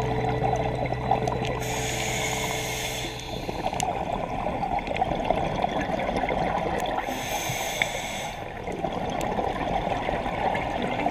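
Scuba diver breathing through a regulator underwater: two breaths, each a rush lasting about a second and a half, about five seconds apart, over a steady underwater hiss.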